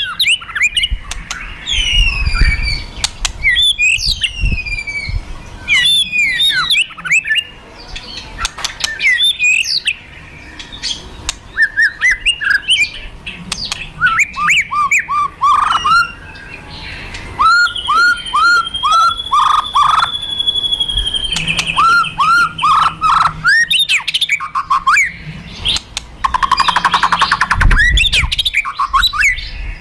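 White-rumped shama (murai batu) singing in fighting mood: loud bursts of sharp, quickly falling whistled notes and clicks, a long held whistle midway, and a dry rattling chatter near the end. This aggressive 'kretekan' and 'tembakan' song is what keepers play to provoke other shamas.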